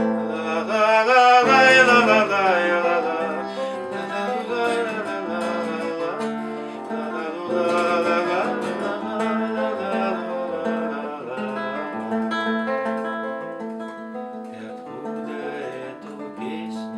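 Acoustic guitar playing the instrumental introduction to a song, with a gliding melody line above the chords.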